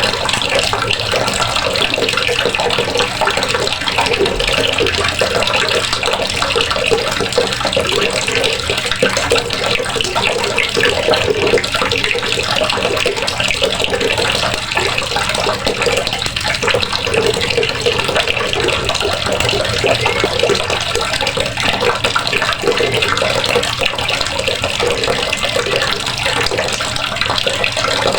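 Water running steadily from a faucet and splashing into a basin below.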